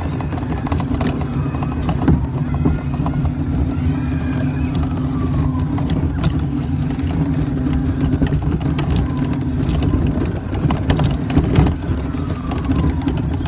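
Vehicle engine running steadily as it drives along, a constant low drone with a few light knocks.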